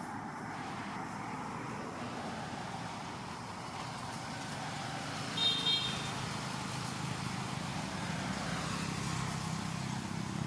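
Steady outdoor background noise with a low rumble like distant road traffic, swelling a little in the second half. About halfway through there is one brief high-pitched squeak.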